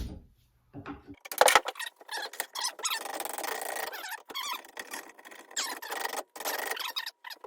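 A hand tool scraping along a wooden axe handle, thinning it down, in an uneven run of strokes. A sharp knock comes about one and a half seconds in.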